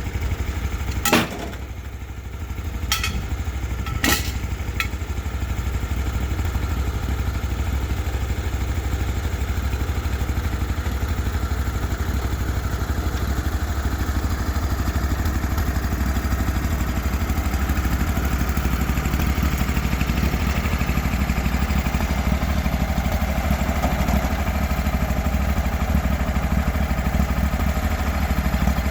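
Engine of a Cook's MP32 bandsaw sawmill running steadily with a strong low hum. There are three sharp knocks in the first few seconds.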